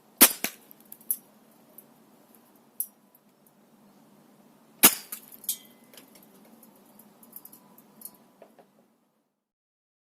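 Two shots from a spring-powered Snow Wolf M24 airsoft sniper rifle, about four and a half seconds apart, each a sharp crack followed by smaller clicks and rattles as the BB hits a kitchen strainer. After the second shot there is a brief metallic ring.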